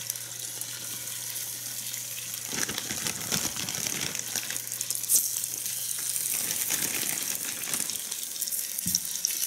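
Flour-coated chicken breasts sizzling in hot oil in a pan as they are laid in one after another to brown: a steady hiss with fine crackles.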